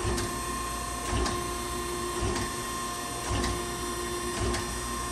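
Okamoto ACC-1632DX hydraulic surface grinder running its automatic grinding cycle: a steady hum and whine from the spindle and hydraulics, with a low knock and faint click about once a second as the table traverses back and forth.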